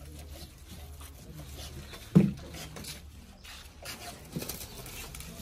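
Hands working bundles of cardboard firework tubes and pressing paper over their ends, making scattered soft taps and rustles, with one loud thump about two seconds in.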